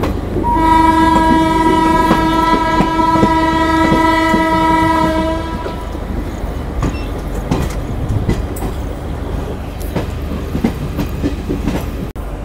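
Train horn sounding one long steady blast of about five seconds, starting about half a second in, over the rumble and clickety-clack of the coach wheels on rail joints; after the horn stops, the wheel clatter goes on as the train rolls into the station.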